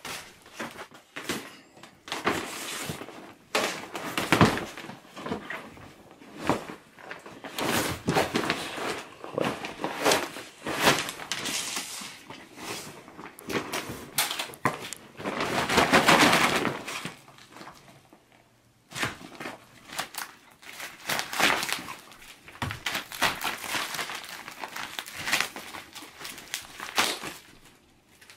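A beagle biting, shaking and tearing a blow-up plastic alien: thin inflatable plastic crinkling and rustling, with many sharp snaps as it rips, in irregular bouts with a longer loud stretch about halfway through.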